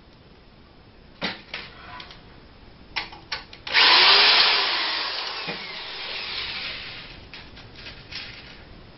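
Cordless drill driving a #6 flathead screw through a metal L bracket into a wooden table skirt. The drill starts suddenly about four seconds in and fades over about three seconds, after a few sharp clicks and knocks.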